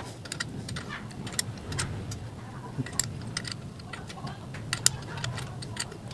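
Irregular metallic clicks and clinks of a wrench working the 14 mm exhaust mounting bolts on a scooter swingarm as they are run in and tightened.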